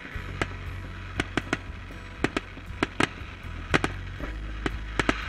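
Aerial fireworks shells bursting in an irregular series of sharp bangs and cracks, about a dozen in five seconds.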